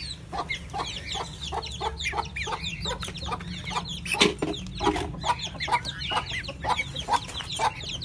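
Chicks peeping in a steady stream of short, high, falling chirps, with a hen clucking lower beneath them. A single sharp knock about four seconds in.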